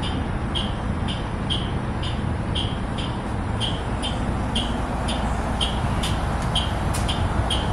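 Electronic beeper inside a New Flyer electric bus giving a short high beep about twice a second, over a steady rumble and hum in the cabin.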